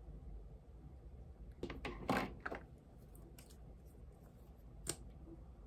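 Clicks and knocks from handling a lipstick tube as it is put away: a short cluster about two seconds in, then one sharp click near the end.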